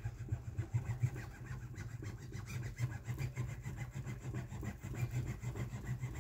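Metal-shoed hand tool pressed and rubbed along the mesh on a screen-printing frame's edge, a continuous rough rubbing and scraping made of many short strokes, with a steady low hum beneath.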